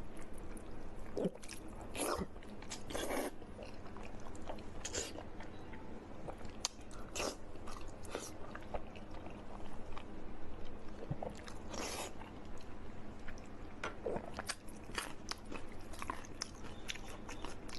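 A person biting and chewing crunchy food, with irregular crunches throughout.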